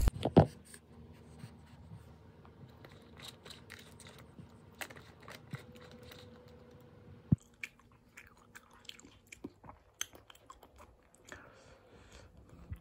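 Eating cup tteokbokki: quiet chewing and scattered short clicks and taps of a utensil against the paper cup, with a stronger knock about seven seconds in. A loud thump comes right at the start.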